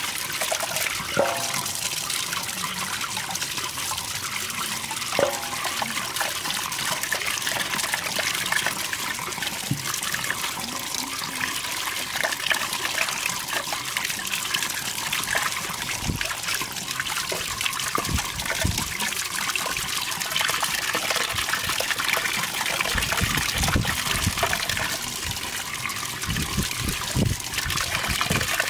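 Running water pouring steadily from a tap onto a plucked chicken and into a metal basin of water, splashing as hands rub and turn the bird. Low thuds and sloshes of the bird being handled come more often in the second half.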